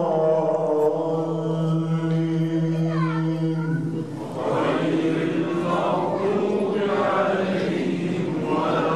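A man's voice chanting Quran recitation through a microphone, holding one long sustained note that ends about four seconds in. Then many voices call out together in response.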